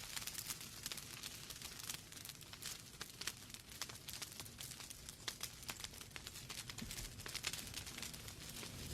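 Wood fire burning in a fireplace: frequent sharp pops and crackles from the logs over a steady low rush of flame.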